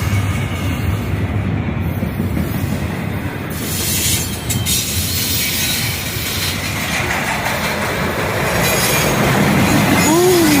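Intermodal freight train rolling past, a steady loud rumble and clatter of wheels on rail. Near the end a brief pitched squeal rises and falls.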